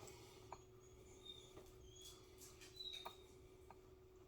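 Near silence: a few faint, short high-pitched squeaks and soft clicks over a low steady hum.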